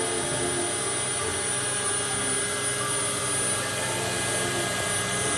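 Electric drill spinning a circular saw blade, running steadily with a constant high-pitched motor whine.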